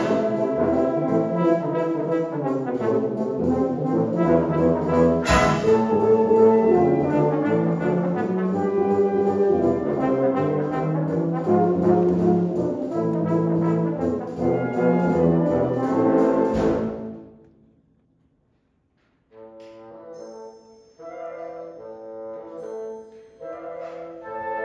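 Concert wind band playing a loud full passage, brass to the fore, with two sharp hits near the start and about five seconds in. About two thirds of the way through the band cuts off suddenly into a brief silence, then comes back softer with short, separate chords.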